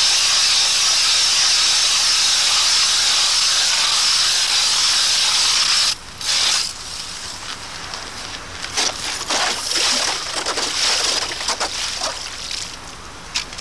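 Hand-cranked ice auger boring through lake ice, its blades cutting with a loud steady grinding hiss. The hiss stops abruptly about six seconds in, followed by irregular scrapes and knocks as the auger is worked in the slushy hole.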